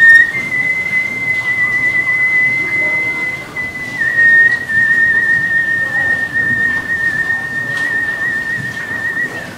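A man whistling through pursed lips: one long high note held for about nine seconds. It steps down slightly in pitch about four seconds in and wavers gently after that.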